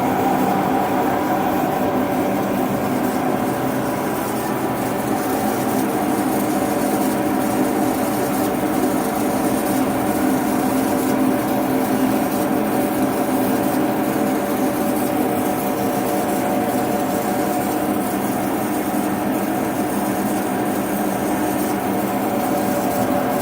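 DoAll bandsaw running steadily, its hydraulics and main blade drive on while the hydraulic table feeds into the cut: an even machine drone with several held tones.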